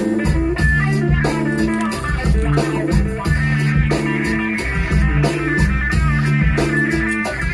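Background music: a guitar-led song with bass and a steady beat.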